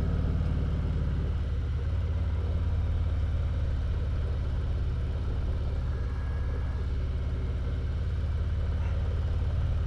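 Motorcycle riding along: a steady, low engine rumble with road and wind noise.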